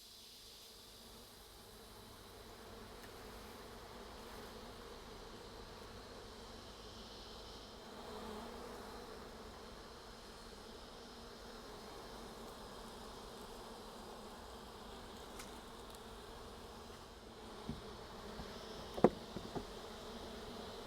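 Honeybee swarm buzzing steadily in a low, even hum as the bees crowd into a hive box. A few sharp clicks near the end, the loudest about two seconds before the end.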